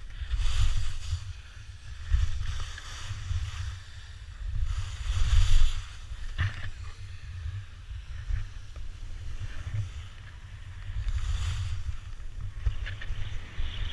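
Skis scraping and hissing over packed, chopped-up snow on a fast run, swelling and fading several times, under steady wind buffeting on a GoPro's microphone. A sharp click about six and a half seconds in.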